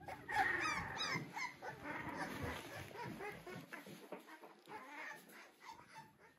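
Three-week-old American Bully puppies whimpering, a run of short high cries from several pups at once. It is loudest about half a second in and tails off toward the end.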